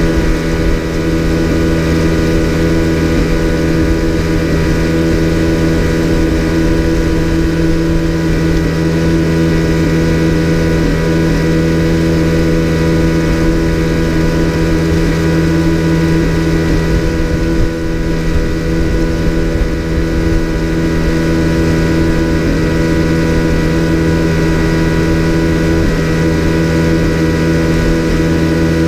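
Outboard motor on a small open boat running at a steady cruising speed, its pitch holding even, with water rushing along the hull.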